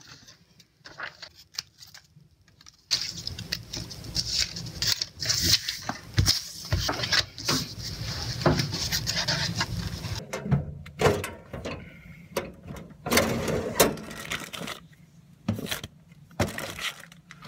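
Paper and craft supplies handled on a tabletop: irregular rustling of paper sheets with sharp taps and clicks, starting after a quiet first few seconds.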